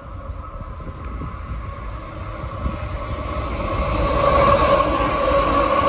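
Aurizon coal train's lead diesel locomotives approaching and drawing level, engine and rail rumble growing steadily louder. A steady whine joins in from about three and a half seconds in as the locomotives near.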